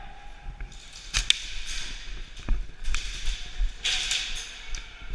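Airsoft guns firing single shots: a few sharp, irregularly spaced cracks, with bursts of rustling noise between them.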